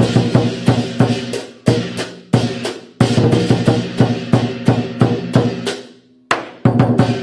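Chinese lion dance music: a drum struck in quick uneven phrases with cymbals and gong ringing over it, breaking off briefly about six seconds in before starting again.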